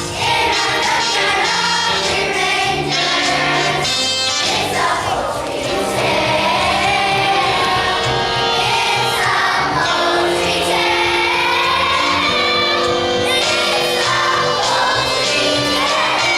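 A children's chorus singing a musical-theatre number together with instrumental accompaniment.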